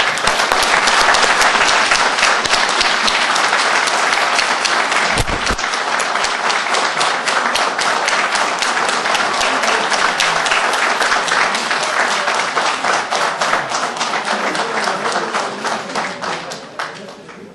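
Audience in a hall applauding steadily, many hands clapping, dying away near the end. A single low thump sounds about five seconds in.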